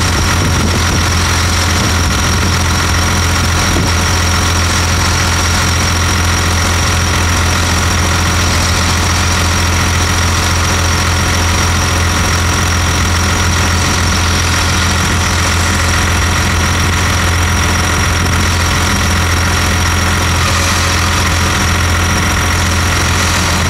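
Tractor-mounted NyVraa willow harvester at work cutting and chipping willow: a steady low engine drone under load, with a steady high whine above it.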